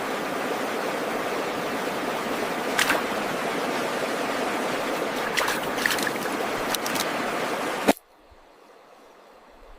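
Steady rushing of river water, with a few sharp splashes or ticks. It cuts off suddenly about eight seconds in.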